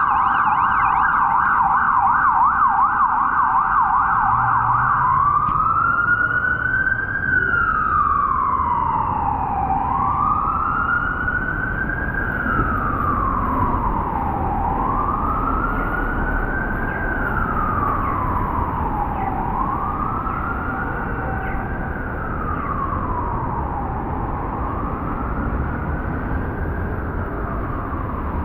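Ambulance siren passing on the street: a fast yelping warble for the first few seconds, then a slow wail rising and falling about every four and a half seconds, growing slightly fainter toward the end. Low traffic rumble runs underneath.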